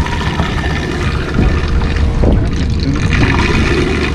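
Live bait tank water splashing and streaming off a long-handled dip net as it is scooped and lifted out of the tank, over the steady low drone of the fishing boat's engine.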